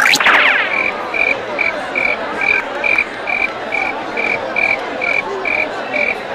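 The tail of a rising whistle-like glide, then an even run of short, high chirps, about two and a half a second, over a steady background hiss: an added animal-call comedy sound effect.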